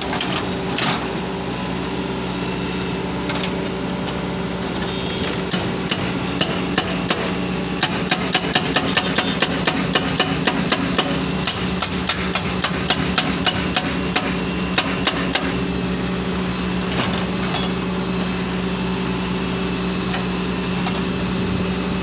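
Hydraulic rock breaker on a Hitachi 130 excavator's boom, pounding rock in a fast run of sharp blows, about four a second, for roughly ten seconds in the middle. Under it the excavator's diesel engine runs steadily throughout.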